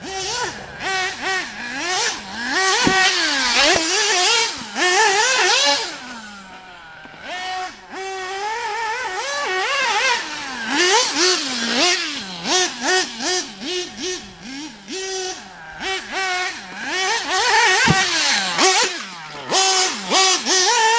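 Alpha Plus Pro Spec .21 nitro RC engine with a tuned pipe, revving hard and easing off over and over, its pitch climbing and falling. It fades for a couple of seconds about six seconds in, then comes back up.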